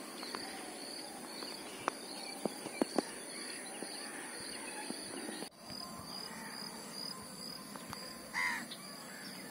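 Quiet open-air ambience: a faint steady high-pitched hum with an even pulse, a few faint ticks, and one short bird call about eight seconds in.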